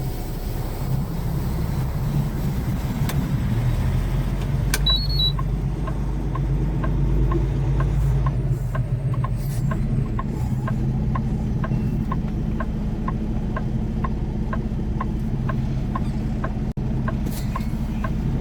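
Semi truck's diesel engine pulling away under load, heard from inside the cab; the drone builds for a few seconds and then holds steady. A short two-note beep sounds about five seconds in, and a turn signal then ticks steadily, about one and a half clicks a second.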